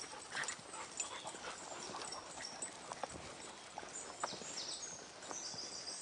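Quiet footsteps of a walker and small dogs on a tarmac lane: faint scattered scuffs and ticks.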